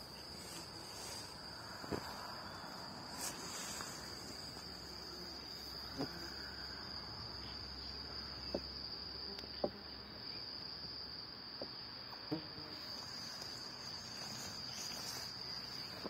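Crickets chirping in one steady high trill, with a handful of short, faint clicks and knocks scattered through.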